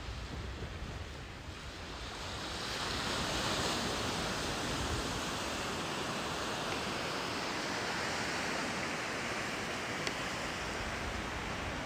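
Ocean surf: waves breaking and washing up the shore, the noise swelling about two seconds in and holding steady.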